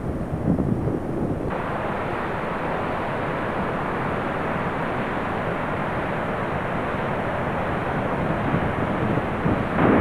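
Steady rushing roar of Niagara Falls and the fast river above it, an even noise without breaks. It grows fuller after a cut about a second and a half in.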